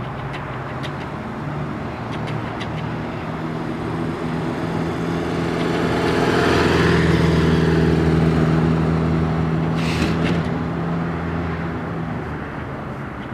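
1985 Honda GL1200 Gold Wing's flat-four engine running at low speed as the motorcycle rides past: it grows louder as the bike approaches, is loudest about seven seconds in, then fades as it rides away.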